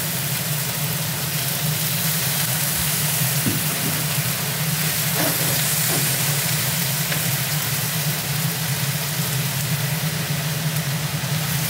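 Cabbage and vegetables sizzling in oil in a hot iron wok over a gas flame as they are stirred with chopsticks, with a few faint clicks, over a steady low hum.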